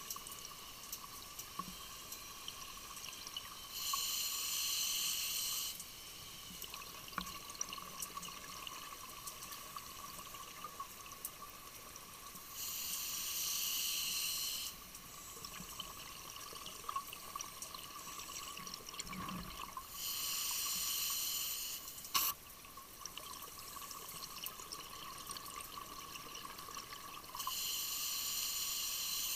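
Scuba diver's breathing heard underwater: four exhalations through the regulator, each a two-second rush of bubbles, about eight seconds apart, over a faint steady tone. One sharp click a little after the midpoint.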